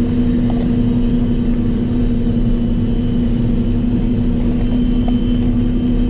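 Heavy farm machine's engine running steadily, heard from inside its cab: a constant hum over a low rumble.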